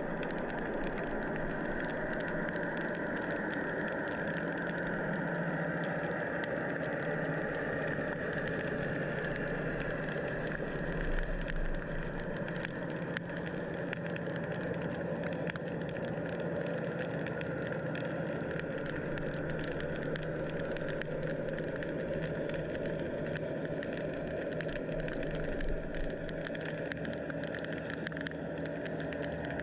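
Steady underwater drone picked up by a submerged camera: a constant low hum with faint crackling throughout, engine-like in character, with no clear change over the whole stretch.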